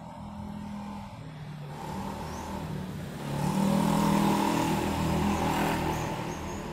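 A motor vehicle passing by, its engine sound swelling about three seconds in and then slowly fading.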